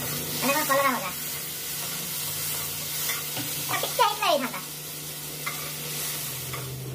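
Vegetables sizzling as they fry in hot oil in a pan while being stirred. A man's voice breaks in briefly twice, about one second and about four seconds in.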